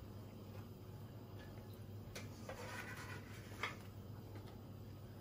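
Faint soft clicks and rustles of fingers pressing cucumber slices into a sauced baguette, a few separate ones around the middle, over a low steady hum.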